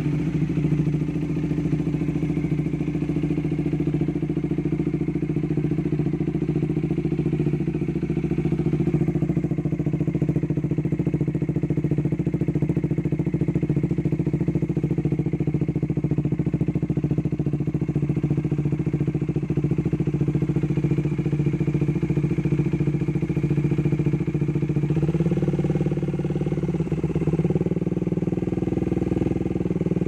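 Bajaj Dominar 400's single-cylinder engine idling steadily through an SC-Project aftermarket exhaust, with the note changing slightly about 25 seconds in.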